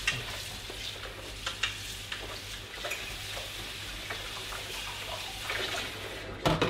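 Kitchen tap running water into the sink as a plate is rinsed, a steady hiss with a few light clinks of crockery and a sharp clack near the end.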